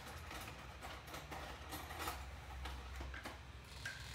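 Faint light clicks and taps, scattered and irregular, over a steady low hum.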